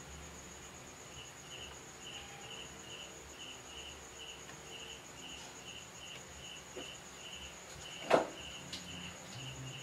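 A cricket chirping steadily, about two short chirps a second, over a faint low hum. About eight seconds in there is a single sharp click.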